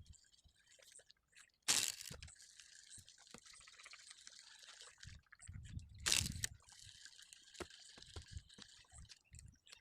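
Water splashing and trickling, with two louder splashes about two seconds and six seconds in.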